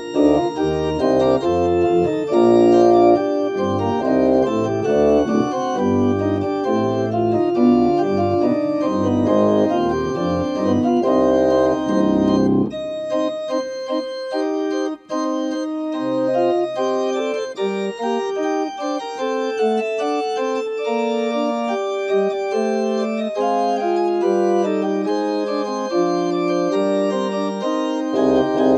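Church pipe organ playing a prelude of held, pitched chords. Deep bass notes sound under the chords for the first half, then drop out about halfway, leaving a lighter, higher line; the bass comes back near the end.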